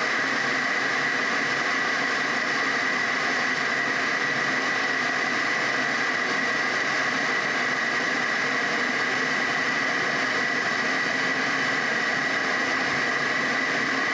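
DeLonghi electric kettle heating water partway to the boil: a steady rushing noise with a steady high tone running through it.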